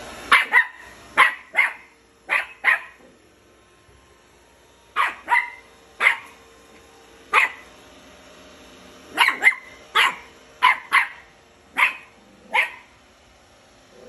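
A Scottish terrier puppy barking at a Roomba robot vacuum he is seeing for the first time: sharp, high yaps, often in quick pairs, about seventeen in all, with a short pause about three seconds in.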